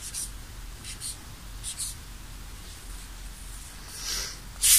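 Marker pen scratching short strokes on a test-book page, about one stroke a second, as answers are marked, with a louder rustle of paper near the end.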